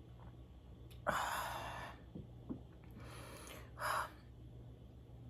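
A person gasping and breathing hard through the burn of too much wasabi: a sharp breath about a second in that trails off, a fainter one, then a short loud breath near four seconds.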